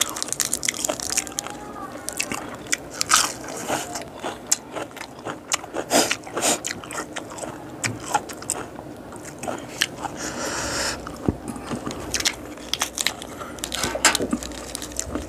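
A person chewing and biting into boiled frog wrapped in lettuce leaves, a steady string of short, sharp crunches.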